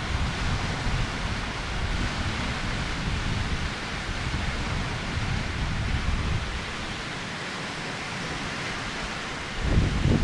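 Wind buffeting the microphone over a steady outdoor hiss, with a stronger gust near the end.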